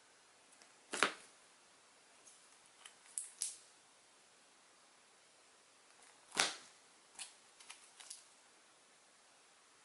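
Comic books in plastic bags being handled one at a time: a handful of short, sharp sounds as each issue is lifted and laid onto a stack. The loudest come about a second in and again just past the middle.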